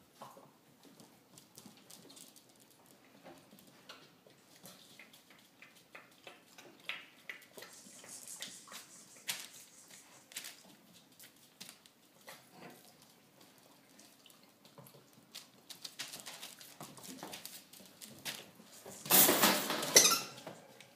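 Vizsla puppies moving about on a wooden floor: scattered light clicks and a puppy lapping water from a glass bowl. A louder rustling noise lasts about a second near the end.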